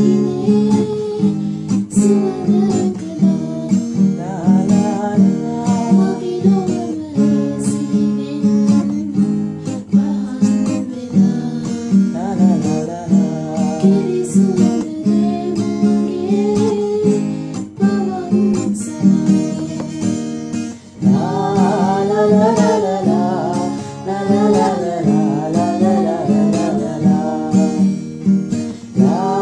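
Acoustic guitar strummed in a steady rhythm to accompany a man singing a song. The singing comes through stronger about two-thirds of the way in, after a brief drop in level.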